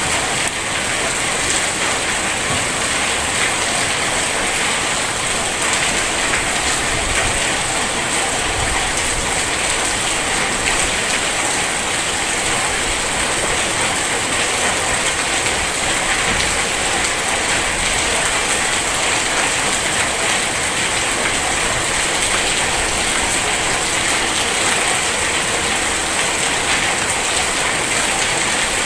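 Heavy rain falling steadily: a dense, even hiss of countless drops hitting surfaces, with no let-up.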